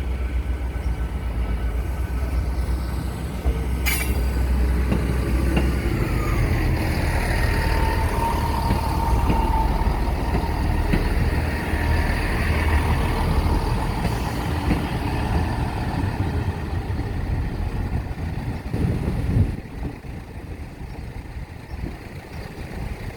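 A train passing over the level crossing: a heavy low rumble that drops away sharply near the end.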